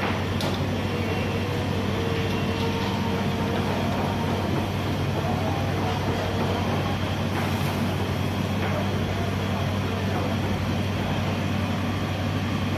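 High-flame gas burner running under a steel pan, a steady low rumble, with shredded carrots in sugar syrup bubbling in the pan as their water is cooked off on high heat.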